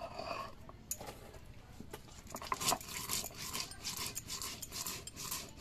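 Rhythmic scraping strokes, about two to three a second, starting about two seconds in after a few scattered knocks, typical of hand work in food preparation.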